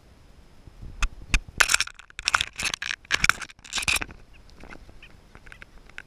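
Canada jay pecking and tearing at a piece of bread held in a hand right at the microphone: two sharp taps about a second in, then a run of loud crackling, rustling bursts for about three seconds, trailing off into a few light ticks.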